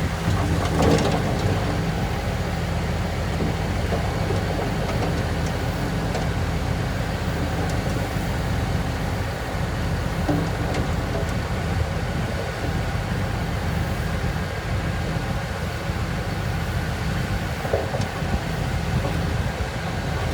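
Heavy diesel earthmoving machinery running steadily, a deep engine drone, with a metallic clank about a second in.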